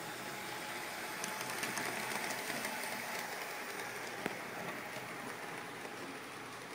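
LGB Uintah G-scale model steam locomotive running on its track with no engine sound, because its sound board is faulty. All that is heard is the steady whirr of its motor and wheels on the rails, which swells as it passes close, with a few sharp clicks.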